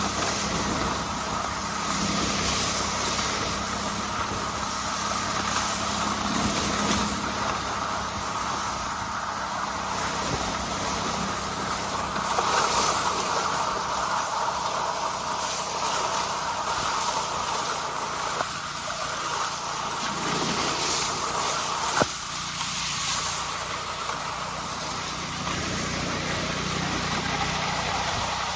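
A car driving, its engine and tyre noise running steadily, with a single sharp click about three-quarters of the way through.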